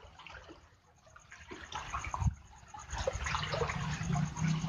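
Running stream water with close rustling and small clicks, growing louder about three seconds in, with a low steady hum underneath.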